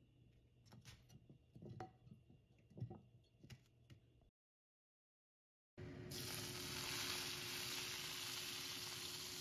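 Faint knocks and clicks as cooking oil is poured from a bottle into a small pan. About halfway in, a loud, steady sizzle begins: smoking-hot oil is poured over chili powder and Sichuan peppercorn powder on beef in broth, scalding the spices.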